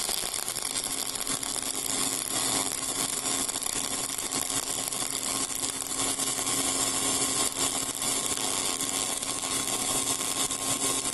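Flux-cored arc welding a fill pass on steel pipe, run at about 26 volts: the arc makes a steady crackling hiss.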